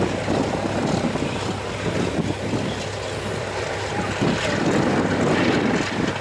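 Boeing B-29A Superfortress's four Wright R-3350 radial engines running as the bomber taxis at a distance, a low uneven rumble with wind buffeting the microphone.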